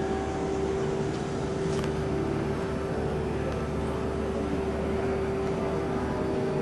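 Steady background noise of a large exhibition hall: a low rumble and an indistinct din under one constant hum.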